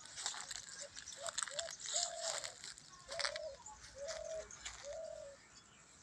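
A bird calling: about six short, steady-pitched notes at irregular spacing over some four seconds, with brief scratchy clicks and rustling alongside.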